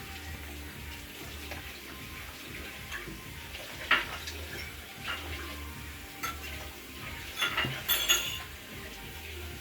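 Light clicks and clinks of small tools and parts being handled, a few scattered over several seconds, over a steady low hum.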